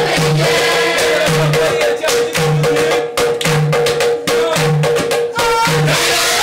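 A youth choir singing with hand clapping over a low beat about once a second. In the middle the singing thins and the sharp claps stand out.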